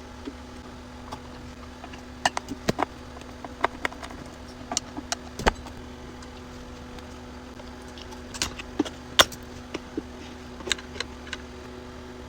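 Scattered clicks and light knocks of tools and parts being handled as an M-Audio BX5 studio monitor is opened up to reach its circuit board, over a steady low hum.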